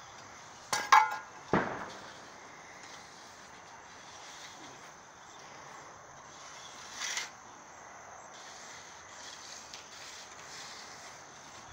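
Insects chirring steadily at a high pitch. A few sharp clicks and a knock come about a second in, and another short noise about seven seconds in.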